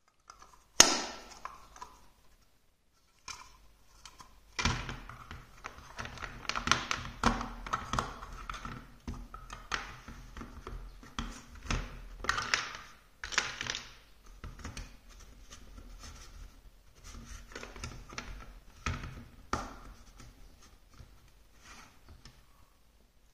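Large plastic building-block marble-run pieces being handled: one sharp plastic knock about a second in, then a long run of clicking, knocking and clattering as pieces and balls are moved and set down, thinning out near the end.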